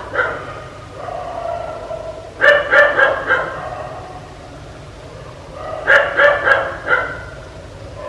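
A dog barking in quick runs of three or four barks, one run about every three and a half seconds, with softer drawn-out sounds between the runs.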